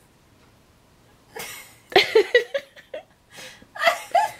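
A woman laughing helplessly: after about a second of near quiet, several short bursts of high-pitched laughter break out in fits.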